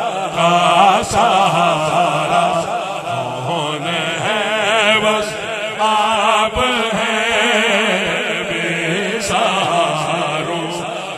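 Male voices chanting a devotional naat melody, the pitch wavering in ornamented runs without a break.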